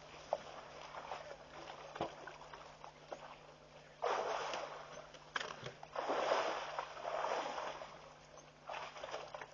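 Elephants splashing water at the edge of a waterhole: a burst of splashing about four seconds in, a longer spell of sloshing and splashing from about six to eight seconds, and a short splash near the end.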